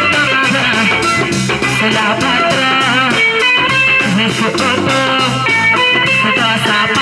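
Live amplified band music: electric guitar and bass guitar over a drum kit and djembe keeping a steady beat, with a woman singing into a microphone.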